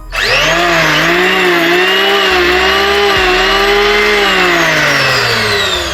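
Electric hand planer's brushed motor and belt-driven cutter drum switched on, spinning up quickly to a steady high whine, then switched off and winding down with falling pitch near the end. It runs smoothly on freshly fitted 6200 bearings, the test run after a bearing repair for jamming and noise.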